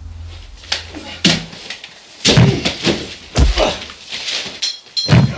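Scuffle between two people: a series of heavy thuds and bangs, about five in all, as bodies are shoved and slammed against walls and a door.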